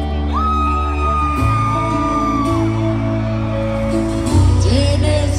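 Live pop-rock band playing between sung lines, with a long held high note over the band for about two seconds near the start.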